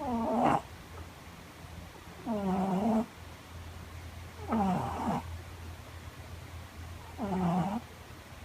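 Cat snoring loudly: four pitched snores about two and a half seconds apart, each lasting around half a second, over a faint steady low hum.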